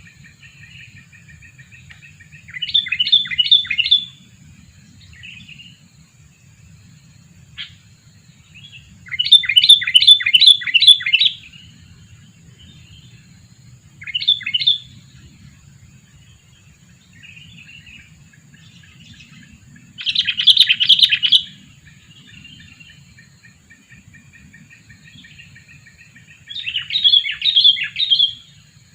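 Sooty-headed bulbul calling in about five short bursts of quick, repeated chattering notes, spaced several seconds apart.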